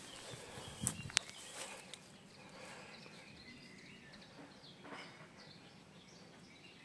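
Faint birds chirping over quiet outdoor background noise, with two sharp clicks about a second in.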